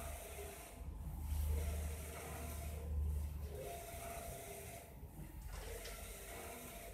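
Flora large-format inkjet printer at work: the print-head carriage runs back and forth across the media with a whirring pass about every two seconds and a brief pause at each turnaround, over a steady low hum.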